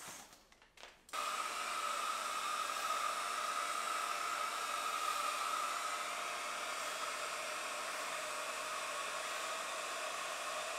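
Remington Curl & Straight Confidence hot air styler with its curling wand attachment, its fan blowing air steadily with a steady whine over the rush; it starts abruptly about a second in.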